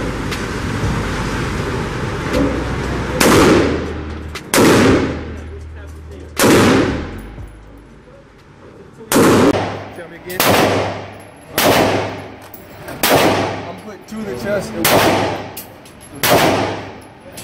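Gunshots fired one at a time, each with a ringing echo that dies away over about a second: three shots a second or two apart, a pause of about two seconds, then six more roughly every one and a half seconds.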